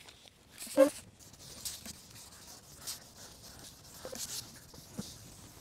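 1500-grit wet sandpaper on a sanding block rubbing over a plastic headlight lens, scratchy strokes about once a second. A brief voice sound about a second in is the loudest moment.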